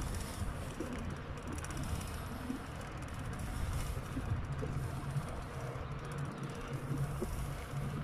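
Wind buffeting the microphone with a steady rolling rumble, as from a bicycle ridden along a paved promenade.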